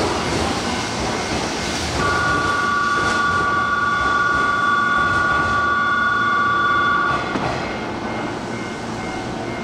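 A platform departure signal sounds as a steady electronic two-note tone for about five seconds, starting about two seconds in and cutting off sharply. Beneath it is the steady hum of a Hankyu 8000 series electric train standing at the platform, amid station noise.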